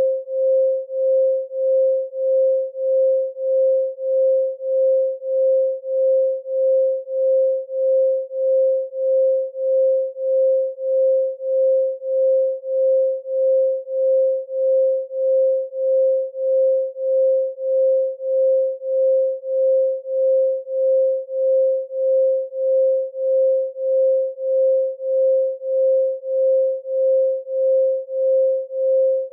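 A pure 528 Hz sine tone held at one steady pitch, pulsing evenly in loudness about one and a half times a second.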